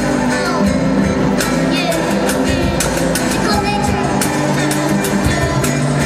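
Live performance of a song by a children's band: acoustic guitars strummed, with a cajón keeping a steady beat.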